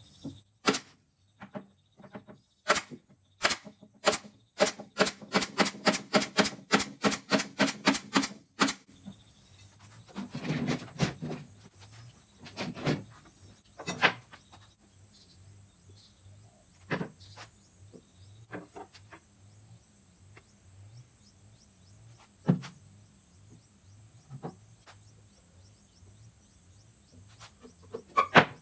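A run of sharp knocks that starts sparse and speeds up to about four a second, stopping abruptly about nine seconds in. A few scattered single knocks follow.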